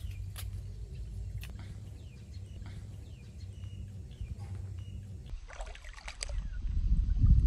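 Wind buffeting the microphone as a fluctuating low rumble, with a few faint bird chirps; the wind rumble swells louder near the end.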